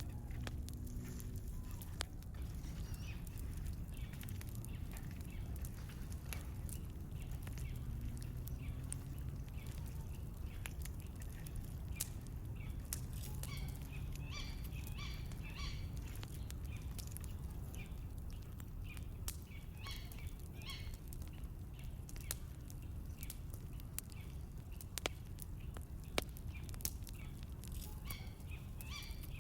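Small birds chirping in short bursts that come and go, over a steady low rumble with scattered sharp clicks.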